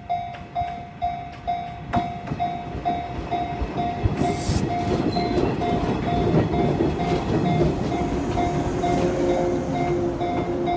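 Japanese level-crossing warning bell sounding its repeated electronic ding, about two strikes a second, while a Jōshin Electric Railway train runs over the crossing with a building rumble and clatter of wheels on rail.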